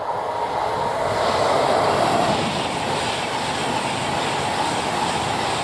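Express passenger train passing close by at speed on electrified main line: a rush of wheel and air noise that builds over the first second or two, then holds steady as the coaches go by.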